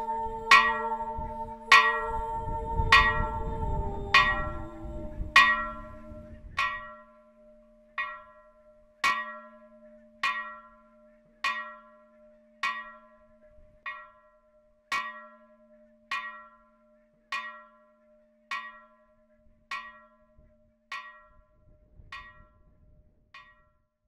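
A church bell tolling slowly, one stroke a little more than every second, each stroke ringing on over a steady hum. The strokes grow fainter toward the end.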